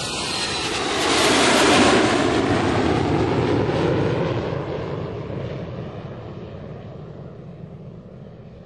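Aircraft taking off: a loud, noisy engine sound swells to its loudest about two seconds in, then fades steadily as the aircraft moves away.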